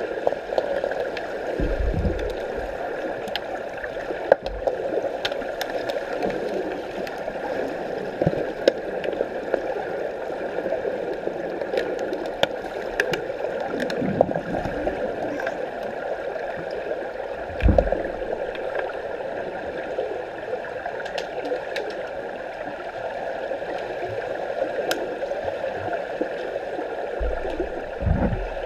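Pool water heard underwater from the camera's position: a steady rushing, gurgling water noise stirred up by swimmers, with scattered sharp clicks and a few low thumps, the strongest about 2, 14 and 18 seconds in.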